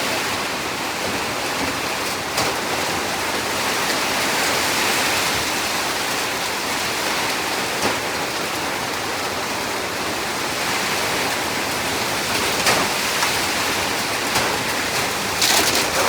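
Heavy rain falling steadily, with a few sharper taps here and there and a brief cluster of them near the end.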